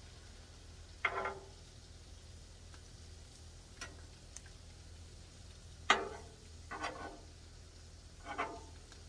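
Metal spatula scraping and clanking on the steel cooktop of a Blackstone griddle as shrimp and chicken are turned: about five short clanks with brief ringing, the loudest about six seconds in, over a steady low hum.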